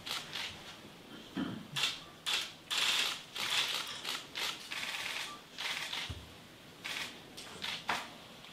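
Scissors snipping through a man's hair: a run of about a dozen short snips at uneven spacing, with a brief pause about two-thirds of the way through.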